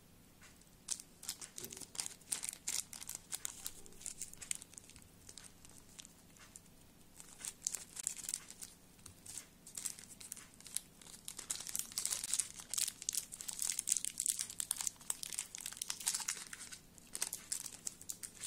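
Small clear plastic zip-lock bag crinkling as fingers handle it and work it open, in quick irregular crackles that grow denser in the second half.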